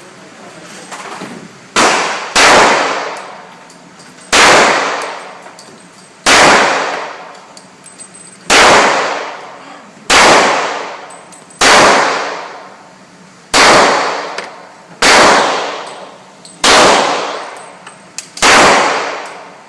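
Pistol fired at a slow, steady pace, about eleven shots one to two seconds apart, each crack ringing out in a long echo.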